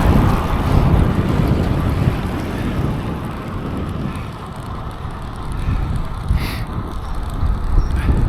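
Wind rumbling on the microphone of a cyclist riding along a road, with the rush of the bicycle's tyres on the tarmac underneath, steady throughout.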